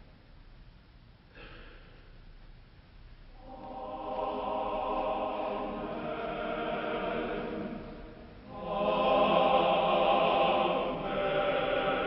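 Choir singing three long, slow held chords, beginning a few seconds in after a short hush; the middle chord is the loudest.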